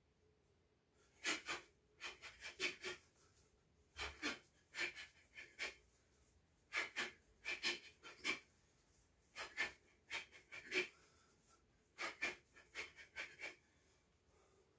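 A man's short, sharp exhalations, hissed out in quick clusters of two to five, one with each strike as he shadowboxes with a knife.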